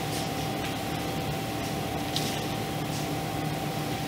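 Steady room hiss with a faint hum, and a brief soft rustle of a Bible page being turned about two seconds in.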